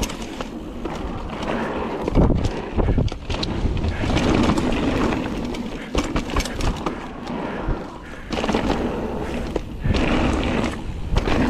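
Mountain bike riding down a dirt singletrack: tyres rolling and crunching over the trail, with frequent clicks and rattles from the bike over bumps and uneven bursts of low rumble.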